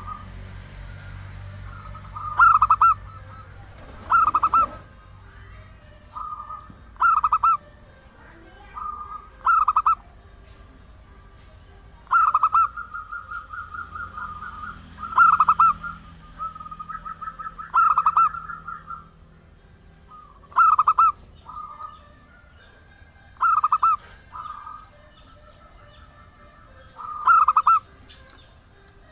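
Female zebra dove calling: short repeated cooing phrases every two to three seconds, some drawn out into longer rolling runs, the call that draws male zebra doves.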